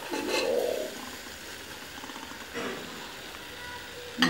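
Metal spoon scraping and scooping stewed meat and onions in a metal pot, in brief bursts near the start and around halfway, with a sharp click at the very end.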